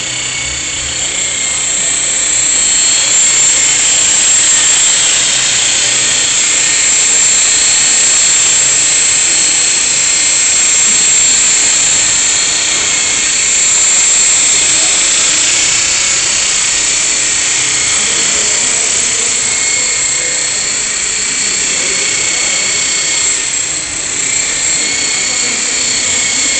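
Esky Belt CPX electric collective-pitch RC helicopter in flight: a steady high-pitched whine from its motor and gears together with the whir of the rotors. The sound swells and fades a little as the helicopter moves around.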